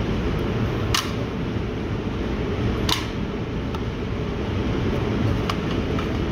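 Steady low rumble of an indoor range's ventilation with phone handling noise. Two sharp clicks come about one and three seconds in, and a few fainter ticks come near the end.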